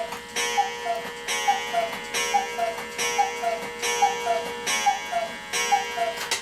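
A cuckoo clock striking: its two-note falling cuckoo call repeats about eight times, a little under a second apart, each call with a gong strike that rings on.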